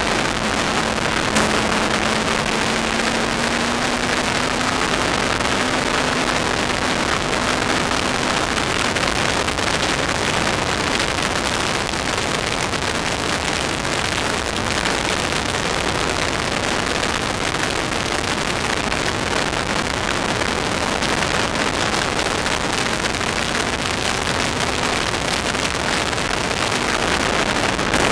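In-car sound of an MK Indy R track car at speed: a steady rush of wind over the microphone with the car's Kawasaki ZX-10R inline-four motorcycle engine running underneath. A faint engine note climbs slightly over the first several seconds.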